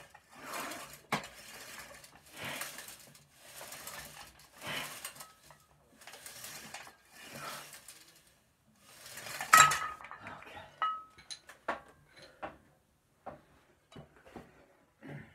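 Heavy rhythmic breathing, about one breath a second, during a weight-training set. About nine and a half seconds in comes a loud metallic clank with a ringing tone as iron barbell weight plates knock together, then a second ringing clank and a few light metal clinks.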